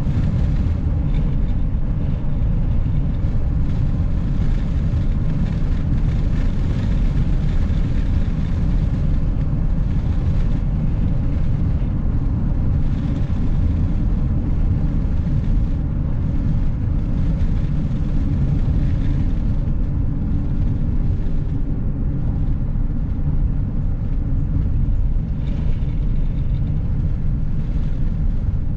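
Steady low road and engine rumble of a vehicle cruising on a paved highway, heard from inside the cab.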